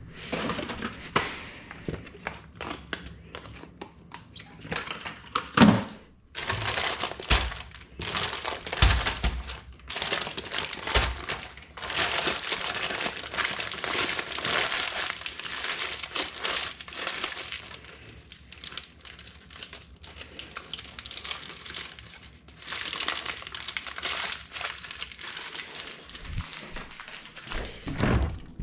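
Crinkly kitchen wrapping being handled: irregular rustling and crinkling, with a few dull knocks.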